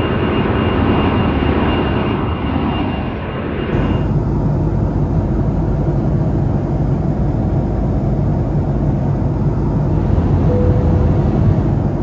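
A jet airliner flying past, a steady rumble with a thin high tone over it. About four seconds in it cuts to the steady low rumble of cabin noise inside an airliner in flight.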